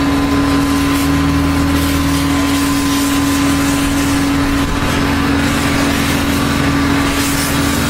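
Dry vapor steam cleaner blasting steam: a steady loud hiss over a steady mechanical drone, whose hum stops near the end.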